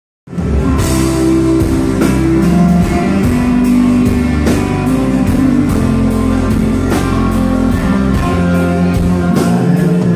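Live country-rock band playing the instrumental opening of a song: electric and acoustic guitars over bass and a steady drum beat, starting abruptly just after the beginning.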